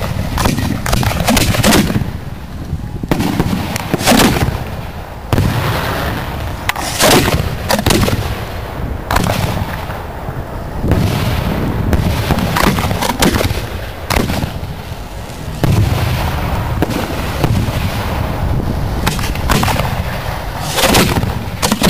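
Aerial fireworks shells fired from 3-, 4- and 6-inch mortars, heard from beside the mortar racks. Sharp bangs of launches and bursts go off irregularly every second or two over a steady low rumble.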